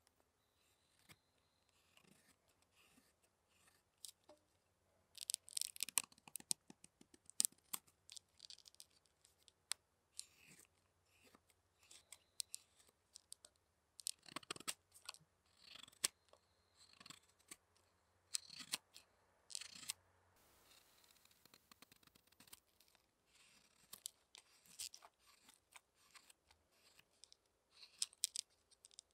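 Hook knife slicing curls of wood out of a wooden spoon bowl: short, crisp scraping cuts that come in irregular bursts of several strokes.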